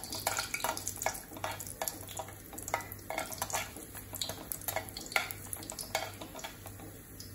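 Steel spatula scraping and knocking irregularly against an aluminium kadhai while whole spices (cinnamon, cardamom, cloves) are stirred in hot oil, the oil sizzling underneath.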